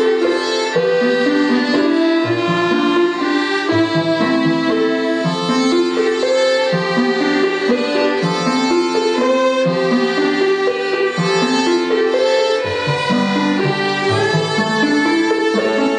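Violins of a small chamber string ensemble playing a tune in harmony, with long held notes over a lower part that moves about once a second.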